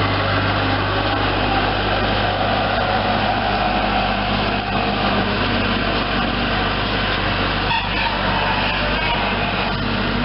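Skid steer loader's engine running steadily at a constant pitch as the machine drives off with a grapple load of tree branches.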